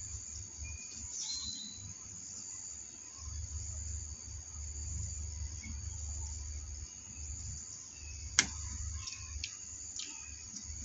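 Steady, high-pitched insect chorus with a low rumble underneath. A sharp click about eight seconds in is the loudest sound, followed by a few light ticks.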